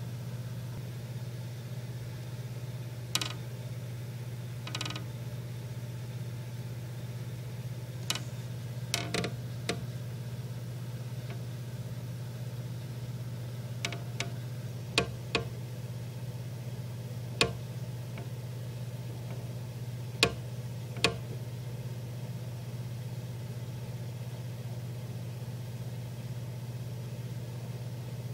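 A steady low hum with about a dozen short, sharp clicks and knocks scattered through it, some single and some in quick pairs; the clicks stop about three-quarters of the way through.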